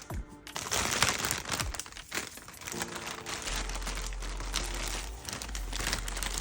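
Plastic packaging crinkling and rustling as it is handled and pulled open, in a run of short irregular crackles.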